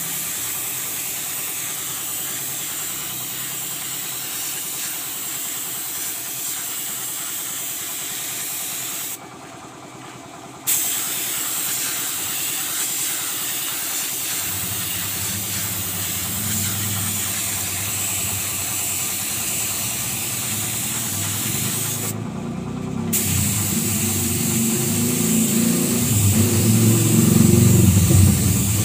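Paint spray gun hissing as it lays down clear coat, stopping twice for a second or so when the trigger is let go. About halfway in a lower motor rumble joins it and grows louder near the end.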